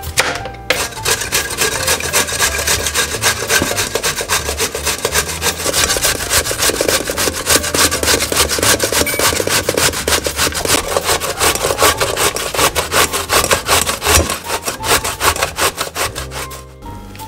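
Zucchini being grated on a stainless steel box grater: loud, quick rasping strokes, several a second, in a steady rhythm. The grating stops about half a second before the end.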